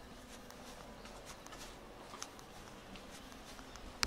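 Footsteps on a concrete alley path at walking pace, faint against a steady outdoor background, with a sharp click near the end.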